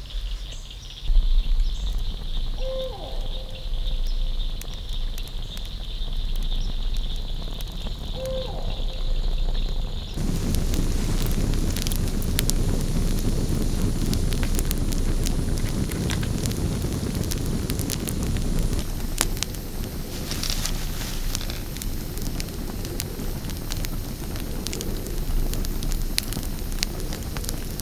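A steady high insect drone with two brief calls, then, about ten seconds in, a wood campfire crackling and popping with many sharp snaps.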